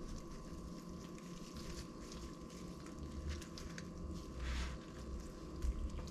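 Gloved hands folding and rolling a lettuce-filled tortilla wrap on a wooden cutting board: soft rustling and light taps, with a louder rustle about four and a half seconds in and again near the end, over a faint steady hum.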